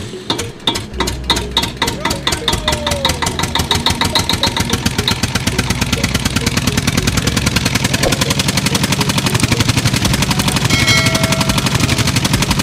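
Miniature crank-started pump engine starting and putting: slow, separate beats just after the crank, quickly picking up into a steady, even beat of about eight a second.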